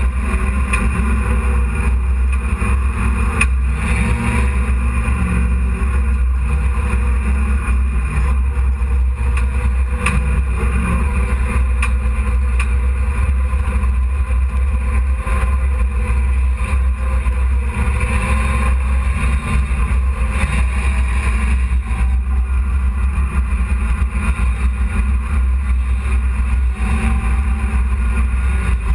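Dirt-track hobby race truck's engine running on track, heard from inside the cab as a loud, steady low rumble.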